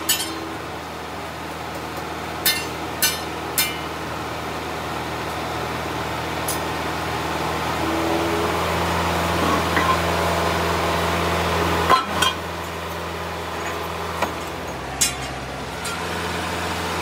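Hydraulic press running with a steady low hum while its ram presses on a truck rear axle housing. Sharp metal clinks and knocks come through it: three in quick succession about three seconds in, and a few more past the two-thirds mark.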